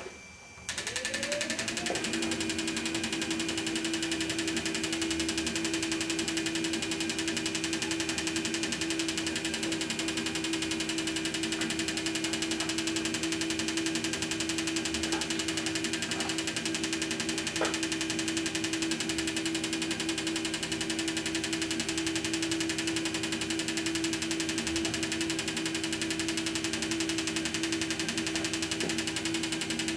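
Fuel injector test bench running an engine idle simulation, six injectors pulsing into measuring cylinders: a steady machine hum with a fast, even ticking, coming on about a second in after a short rising sound as the bench starts.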